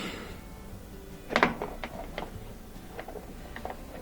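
Short plastic clicks and snaps as a flathead screwdriver pries a front-loading washer's plastic panel off its retaining tabs, the loudest snap about a second and a half in, with a few lighter clicks after.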